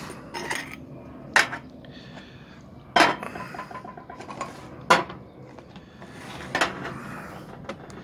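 Brass and steel parts of an antique Ottoman coffee grinder knocking and clinking as they are handled and set down on a table, about five sharp strikes a second or two apart. Some of them ring briefly.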